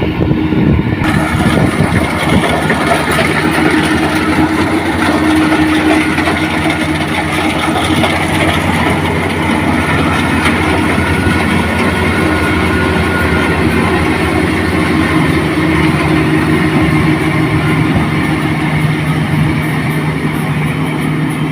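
Rice combine harvester running steadily: an engine hum under a dense mechanical noise, which gets brighter about a second in.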